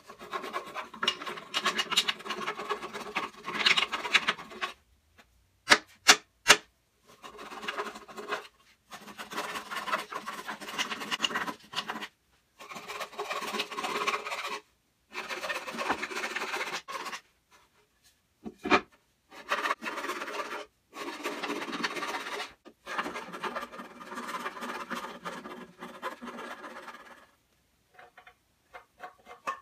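Small hand file rasping back and forth inside a drilled slot in a wooden bench leg, in bursts of strokes with short pauses, smoothing the ragged walls left by a brad-point bit so a lag screw can slide in the slot. A few sharp clicks fall between the bursts.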